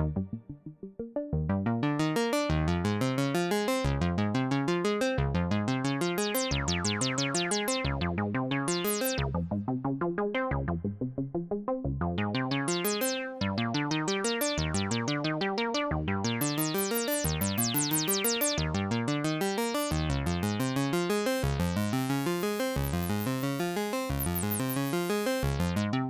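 Elektron Analog Keys analog synthesizer playing a Juno-60-style patch: a steady sequence of short bass-and-chord notes, about two a second, each starting bright and quickly dulling. After a brief gap near the start, the pattern runs on and turns brighter near the end.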